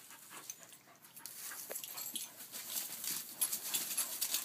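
Dogs playing on dry grass and fallen leaves: scuffling and rustling of paws, with panting, busier in the second half.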